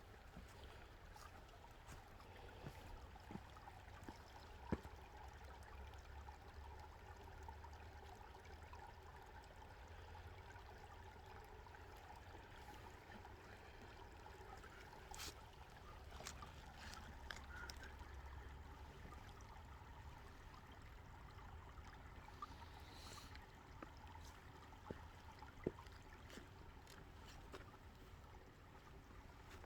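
A small creek trickling faintly, with a few sharp clicks.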